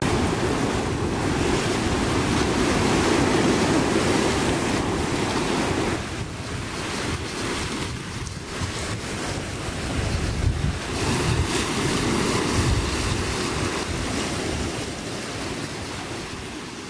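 Sea waves surging and washing over a low rock shore, with wind buffeting the microphone. The sound drops back about six seconds in and grows gradually quieter over the last few seconds.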